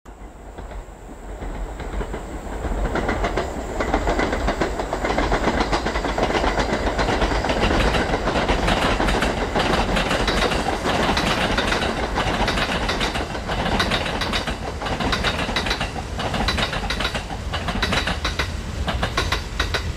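Kintetsu limited express electric train approaching and crossing a concrete river viaduct: a rumble builds over the first few seconds, then rapid wheel clatter over the rail joints sets in from about halfway.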